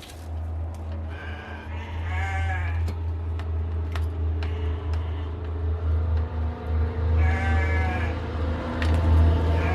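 Scattered sharp clicks and knocks over a steady low hum, with two drawn-out wavering cries, one about two seconds in and one about seven seconds in.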